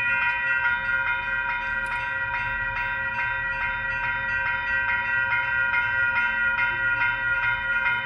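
Railroad crossing warning bell dinging rapidly and evenly at a grade crossing as a train approaches, with a low rumble underneath.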